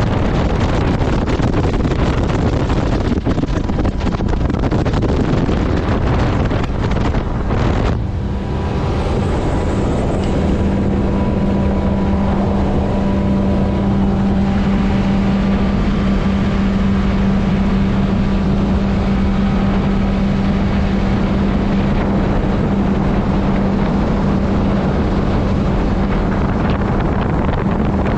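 Wind buffeting the microphone and water rushing past a rigid inflatable speedboat running at speed. About eight seconds in, the steady drone of the boat's engine comes through under the wind and carries on.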